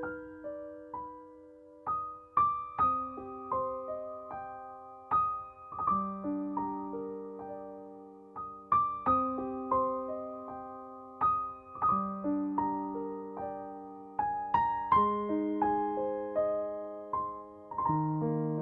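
Background music: a slow, gentle piano melody of single struck notes over sustained chords.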